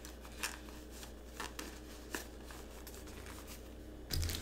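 Faint rustling and a few light clicks of a headphone cable being handled and tucked into a carrying bag, with a louder rustle near the end.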